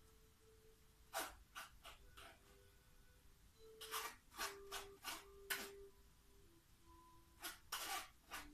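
A spoon scraping against a small mesh strainer, pressing soaked flaxseed pulp through to strain the flaxseed water: short scratchy strokes in irregular clusters.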